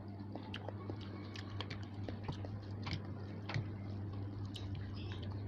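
Close-miked chewing of spicy noodles: an irregular string of small wet clicks and smacks from the mouth, over a steady low hum.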